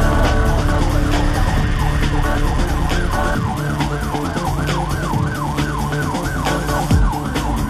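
Police car siren wailing, its pitch sweeping up and down about twice a second from about three seconds in.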